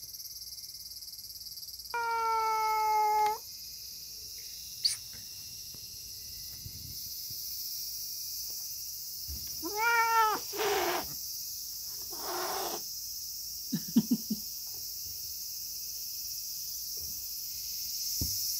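Grey-and-white domestic cat meowing repeatedly: one long drawn meow about two seconds in, then a cluster of arching meows around ten to thirteen seconds in, with a few short low chirps just after.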